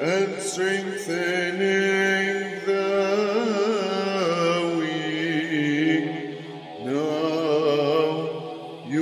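Orthodox troparion chanted in English: sung phrases of long held notes that glide between pitches, with a slight waver on the held notes and brief breaths between phrases.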